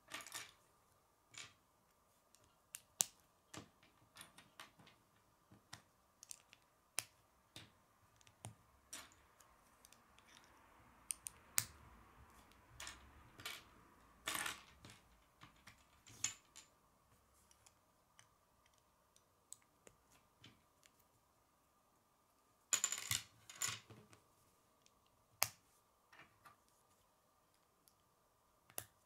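K'nex plastic rods and connectors being handled and snapped together: irregular sharp plastic clicks and snaps, with a quick flurry of them about three-quarters of the way through.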